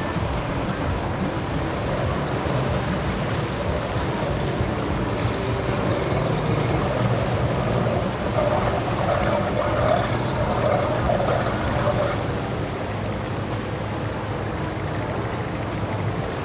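Outboard motorboat engines running, over a steady wash of water and waves.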